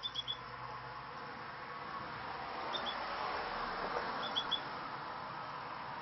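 Caged finches giving short high chirps in quick groups of two or three, a few times, over a steady background hiss.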